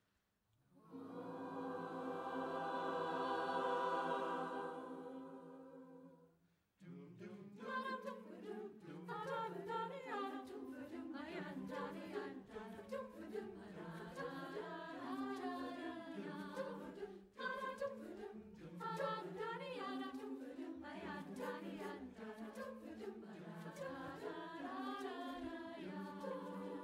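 A large mixed choir singing without words: a long held chord that swells and then fades over the first few seconds, then, after a short break, a moving melody over a steady lower part.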